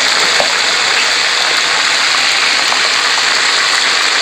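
Whole catfish deep-frying in a pan of bubbling oil: a steady sizzle with occasional small pops.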